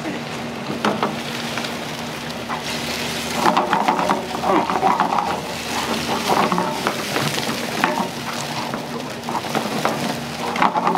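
Food sizzling in hot oil in a restaurant kitchen, a continuous crackling hiss with frequent short clinks and clatter of utensils.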